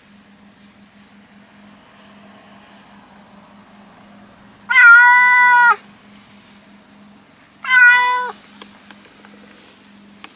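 Tabby cat meowing loudly twice, a long drawn-out meow of about a second followed by a shorter one that drops in pitch at the end: protest calls of a cat that dislikes riding in a car. A low steady hum runs underneath inside the car.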